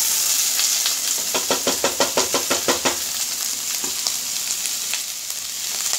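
Chopped onions sizzling in hot oil in a stainless-steel kadhai, just added. About a second in, a quick run of clicks, about eight a second for some two seconds, as they are stirred against the pan.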